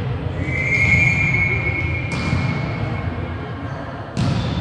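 Referee's whistle blown once, a single steady high note lasting about two seconds that fades away. Then come sharp smacks of the volleyball being struck, a faint one about halfway and a louder one near the end.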